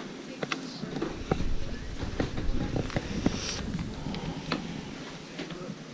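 Scattered light clicks and knocks of handling and movement, with a low wind rumble on the microphone for a couple of seconds near the middle.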